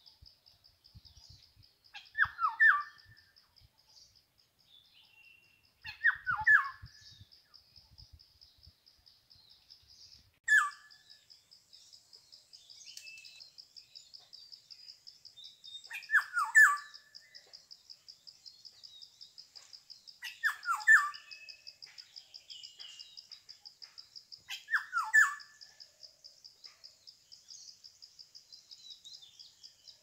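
Black-hooded oriole calling six times, about every four to five seconds, each call a short cluster of quick downward-sliding notes. A steady, pulsing high insect trill runs underneath.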